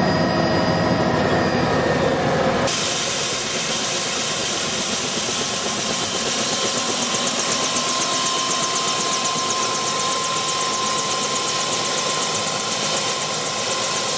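Light turbine helicopter running on the ground with its rotor turning: first its steady whine heard from inside the cabin, then, from about three seconds in, heard from outside, with a steady high whine over a fast, even beat of the rotor blades.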